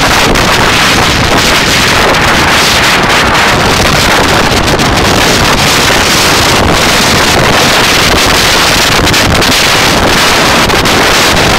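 Loud, steady wind rushing over the microphone from a car moving at motorway speed, mixed with road and traffic noise.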